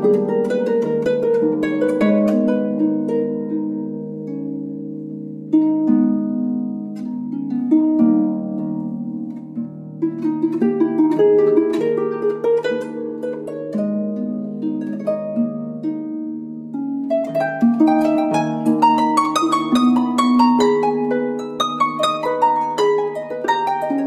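Gentle instrumental background music of plucked, harp-like notes, growing fuller and busier about two-thirds of the way through.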